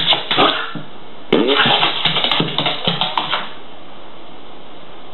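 Rasping, buzzing fart noises in two bursts: a short one at the start and a longer one of about two seconds beginning just over a second in.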